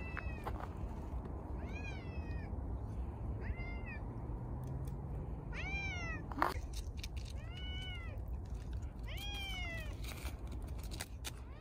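Feral cats meowing: about five separate meows, each rising then falling in pitch, with a single sharp click just after the middle.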